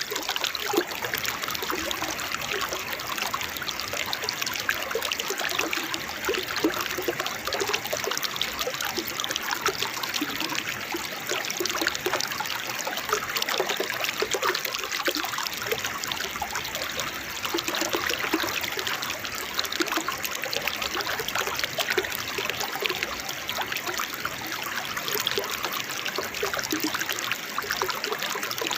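Small waterfall: water trickling and splashing in a steady, unbroken flow.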